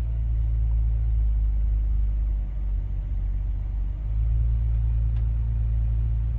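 BMW X5 E70 3.0si's 3.0-litre straight-six engine idling with a steady low rumble, just started after new intake and exhaust VANOS solenoids were fitted to cure a rough, pulsating idle; the owner judges it to be running smooth.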